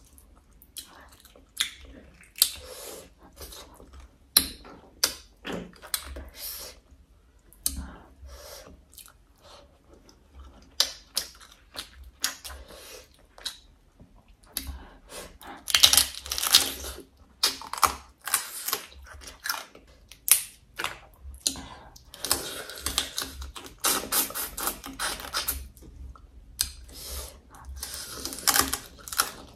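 Close-miked eating sounds: braised crab shells being cracked and pulled apart by hand and chewed, making many sharp clicks and crunches. The crackling comes in longer, louder stretches a little past halfway and again near the end.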